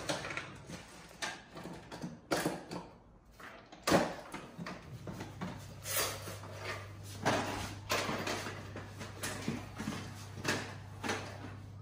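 Hand tools clattering and knocking as they are sorted into an open tool bag: a run of irregular clicks and knocks, the loudest about four seconds in, over a low steady hum.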